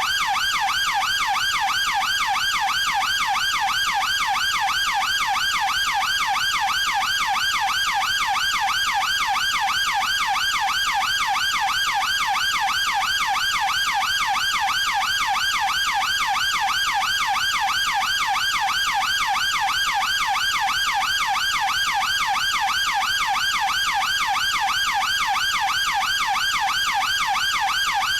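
UK police car siren sounding continuously in a fast rising-and-falling wail, a few sweeps a second, steady in level throughout.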